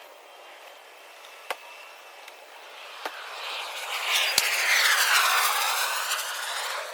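A vehicle passing by, swelling up from about three seconds in, peaking, then easing off, with a few sharp clicks before it.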